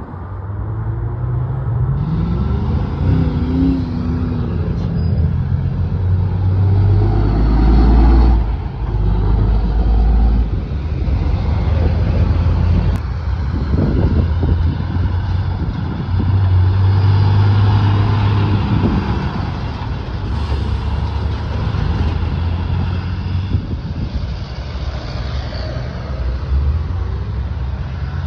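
Heavy diesel trucks driving past, engines pulling through the gears with rising pitch. The loudest passes come about eight seconds in and again around seventeen seconds.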